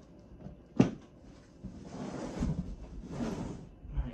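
A single sharp knock just under a second in, then about two seconds of rustling and scuffing handling noise with low thuds.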